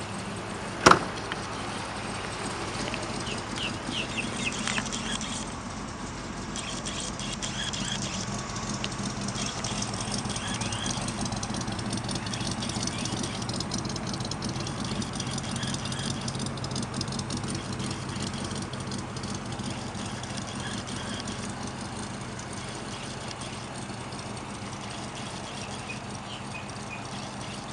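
A vehicle engine idles steadily with a low hum. There is a single sharp bang about a second in, and birds chirp faintly a few seconds later.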